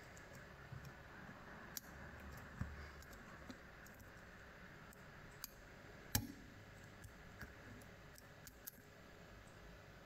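Faint, irregular metallic clicks and ticks of a lock pick and tension tool working inside a brass cylinder lock, with one sharper click a little past six seconds in.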